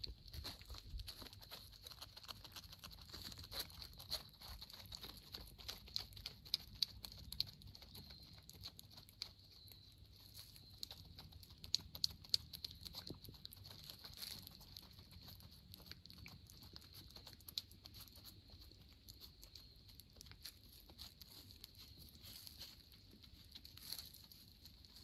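A stray cat eating wet cat food from a paper plate: irregular, close-up wet chewing and licking clicks, several a second, with louder smacks now and then.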